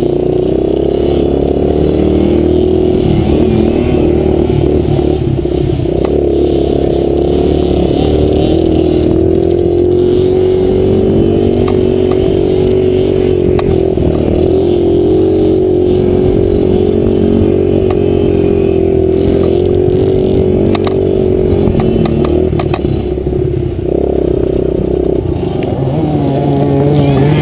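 Small 65cc-class dirt bike engine running hard at a fairly steady high pitch, wavering a little with the throttle and dipping briefly near the end, with scattered clatter from the bike over the rough ground.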